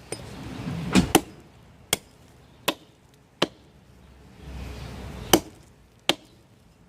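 Hatchet chopping into a log: about seven sharp, separate strikes, roughly three-quarters of a second apart, with a quick double strike about a second in.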